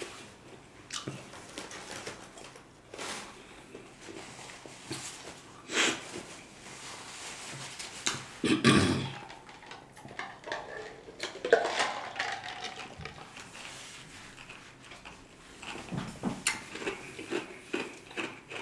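Close-miked mukbang eating and mouth sounds from a man eating spicy noodles: scattered mouth clicks and breaths, a louder knock a little before midway, then gulps from a plastic cup, and a run of light clicks and taps near the end.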